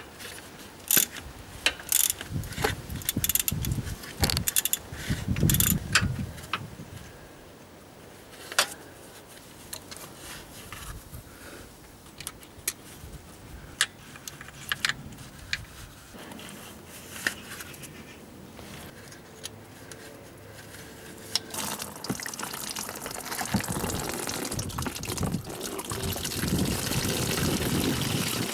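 Hand tools clicking and clinking on metal as the coolant pump bolts are undone. Later on, coolant starts running out into a metal drain pan, a steady trickle and splash that grows louder toward the end.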